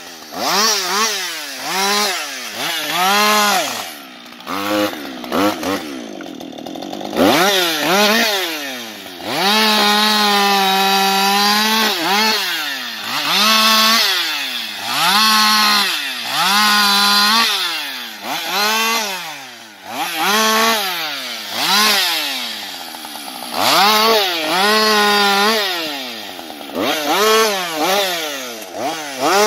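Husqvarna 560XP II chainsaw's single-cylinder two-stroke engine revving up and down again and again while cutting wood. Its pitch climbs to a steady high whine for a second or two, then falls away, over and over.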